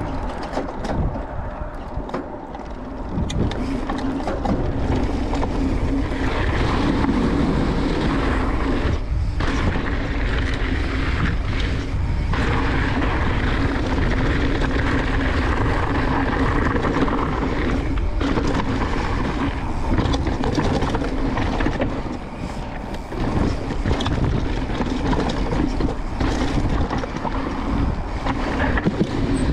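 Transition Sentinel full-suspension mountain bike ridden down a trail: steady rush of wind on the microphone and rolling tyre noise, with frequent short rattles and knocks from the bike over rough ground.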